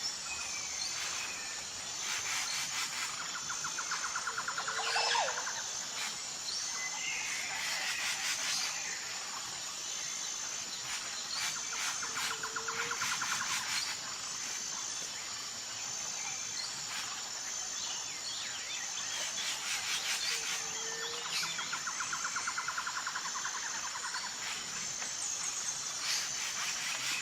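Jungle ambience: insects trilling steadily on a high pulsing note, with birds chirping and calling over it. A rapid lower trill and a short low call recur about every eight seconds.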